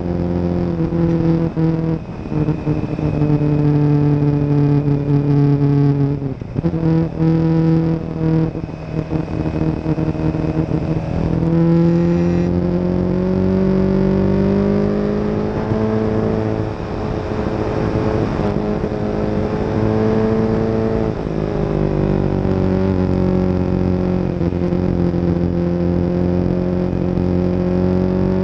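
Motorcycle engine running while riding at speed. Its pitch holds steady, breaks up briefly around six to nine seconds in as the throttle changes, climbs slowly through the middle and drops about twenty-one seconds in.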